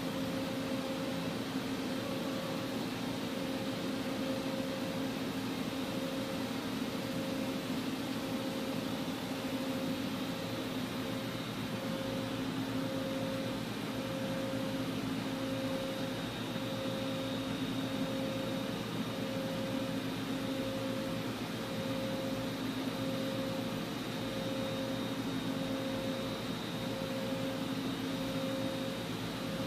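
Doosan Puma 480 XLM CNC lathe powered up and idling with its chuck at rest: a steady machine hum with a faint high whine, and a mid tone that pulses about once a second.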